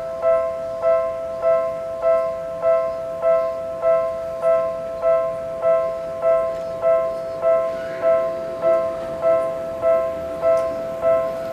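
Japanese railway level crossing warning bell ringing, an even, repeated ding a little under twice a second, the signal that a train is approaching.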